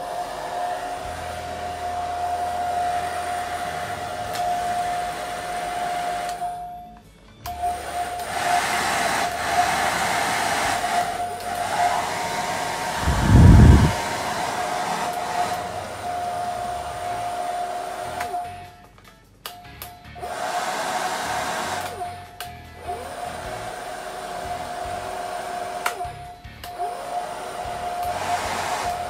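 Braun hair dryer running after its broken power cord has been resoldered: a steady rush of air with a steady whine, cutting out and starting again several times, about a quarter and two-thirds of the way in. Around the middle there is a brief, loud low blast, the loudest moment.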